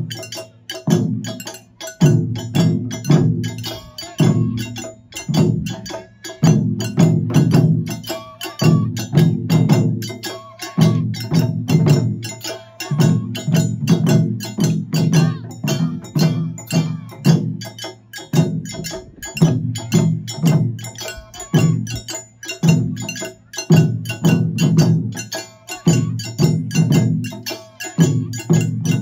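Ensemble of Japanese taiko drums, barrel-shaped nagado-daiko, beaten with wooden sticks in a fast, driving rhythm. Heavy drum beats come in phrases of a second or two with short breaks, over a steady run of sharp clicking strikes.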